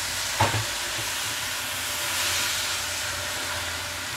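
Oyster mushrooms and green chilies sizzling steadily in a hot oiled wok as they are stirred and tossed with a silicone spatula. There is a single knock about half a second in.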